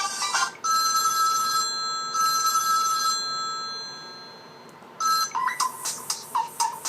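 Built-in ringtones of a Samsung Galaxy Ace GT-S5830 being previewed one after another. A held electronic chime of steady tones fades out over about four seconds. Then, about five seconds in, the next ringtone starts with a quick run of short melodic notes.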